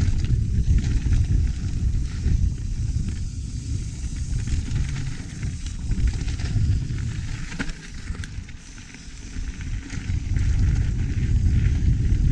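Wind noise rumbling on a GoPro's microphone while a mountain bike is ridden, with light clicks and rattles from the bike and tyres on the trail. The rumble eases about eight seconds in and builds again a couple of seconds later.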